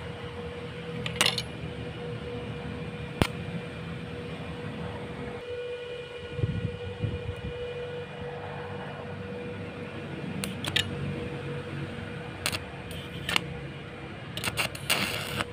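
Steel reinforcing rods being worked for welding: a steady electrical hum runs throughout, broken by a handful of sharp metallic clinks, with several close together near the end.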